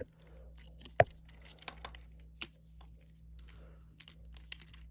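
Scattered small plastic clicks and taps of a Transformers action figure's parts being handled and folded during its transformation, with one sharper click about a second in.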